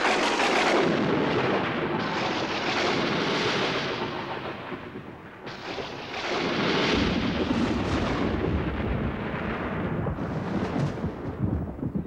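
Thunder: a sudden crash that rolls on for several seconds, then a second crash about five and a half seconds in, with sharper cracks near the end.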